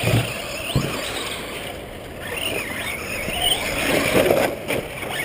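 Radio-controlled off-road trucks racing on dirt: their motors whine, rising and falling with the throttle, over a steady rushing noise.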